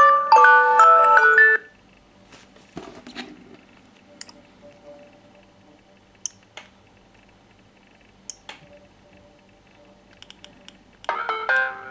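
Samsung smartphone ringtone playing a phrase of stepped electronic notes that stops after about a second and a half. Then a few light clicks and taps, with a faint steady tone under them, and near the end another short burst of phone melody.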